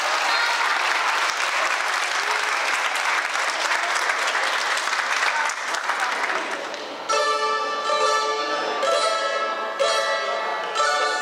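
A crowd applauding for about seven seconds. It then cuts off suddenly and a small ensemble of tamburicas starts playing plucked string music.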